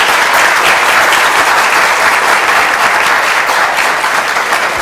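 Conference audience applauding steadily, many hands clapping at once, in a large hall at the close of a talk.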